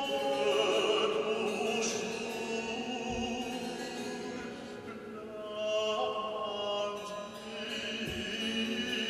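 Baroque chamber music: a baritone singing in operatic style, accompanied by harpsichord.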